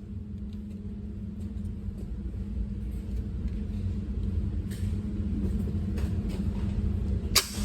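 A steady low mechanical rumble with a droning hum, slowly getting louder. A few light clicks run through it, and one sharp crack comes shortly before the end.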